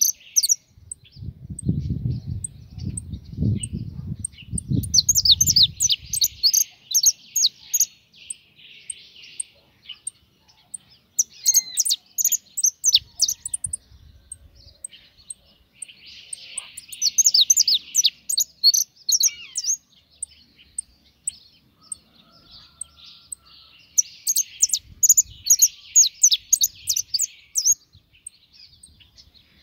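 Caged goldfinch singing a fast, twittering song in bursts of several seconds separated by short pauses. A low rumble sits under the first few seconds.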